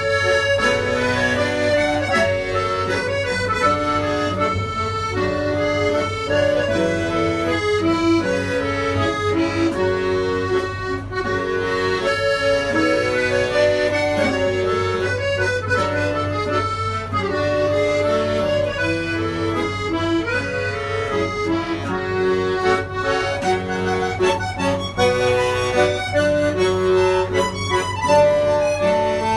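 Piermaria button accordion (bayan) playing a melody with chords, with a Kazakh dombra strummed along.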